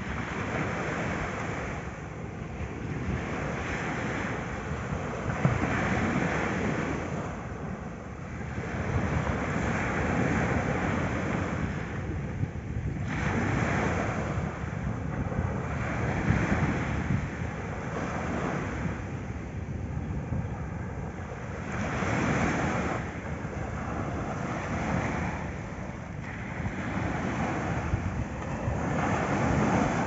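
Small sea waves breaking and washing up a sandy beach, the surf swelling and easing every few seconds, with wind on the microphone.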